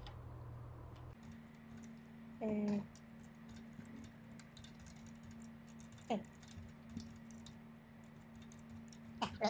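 Typing on a computer keyboard: a steady run of light keystrokes, with a short spoken word about two and a half seconds in and a brief murmur about six seconds in.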